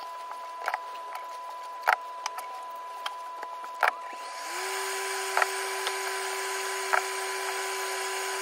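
A few sharp clicks and knocks from handling, then about halfway through a cooker-hood extractor fan is switched on: its motor hum rises briefly and settles into a steady tone under a rush of air, with a few more clicks over it.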